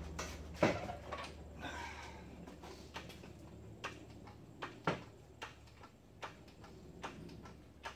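Hydraulic floor jack being worked under a mower deck: a sharp metal knock just after the start, then a run of clicks and clunks from the jack handle strokes, roughly one every three-quarters of a second, with a loud knock near the middle.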